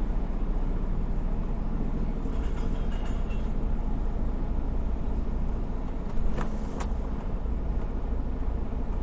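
Delivery truck's diesel engine idling steadily, with two sharp clicks about six seconds in, half a second apart.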